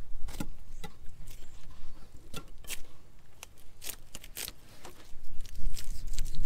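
Fillet knife cutting a bass fillet away along the backbone and ribs: a run of scattered small clicks and scrapes as the blade works over the bones, with a low rumble growing louder after about five seconds.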